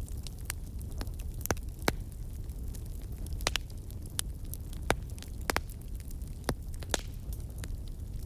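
Wood campfire burning: irregular sharp crackles and pops from the burning wood, the strongest about two and five seconds in, over a steady low rumble.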